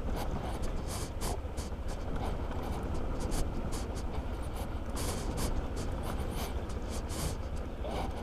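Riding noise on a Honda ADV scooter: a steady low rumble of wind and road on the microphone, with frequent short scratchy rustles over the top.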